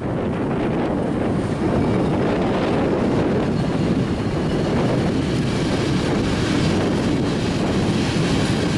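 Freight train passing close by, led by two ČD Cargo class 363 electric locomotives and then hopper wagons: a steady rush of wheels on rail and running gear that builds in the first second. Wind buffets the microphone throughout.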